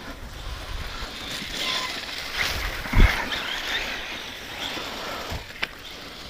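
Losi Tenacity T 4WD brushless RC truggy driving over grass: electric motor and drivetrain whine rising and falling with the throttle, with a thump about three seconds in and a sharp click near the end.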